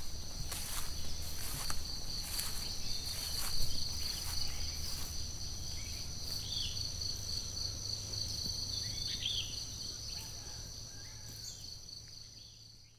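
Steady high insect trilling with a few short bird chirps and a low rumble beneath, fading out toward the end.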